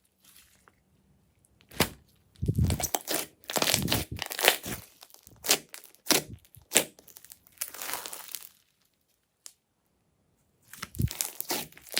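Hands squeezing and poking slime, making crackling, clicking and squishing noises in irregular bursts. The noises pause near the start and again about ten seconds in.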